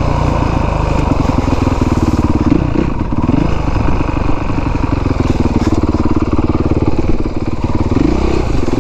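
A 2017 Honda CRF450R's single-cylinder four-stroke engine running at low revs. The pitch rises briefly with the throttle about three seconds in and again near the end.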